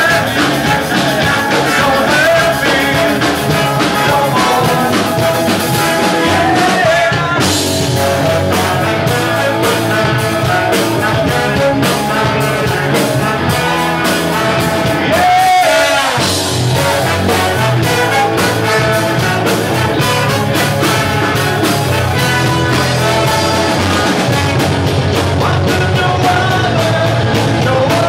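A live rock band with a horn section plays an upbeat song. A male lead singer sings over guitar and drums, with trumpet, trombone and saxophone.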